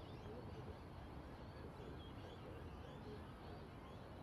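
Faint open-air background: a steady low rumble, distant voices from the players on the field, and scattered faint high chirps.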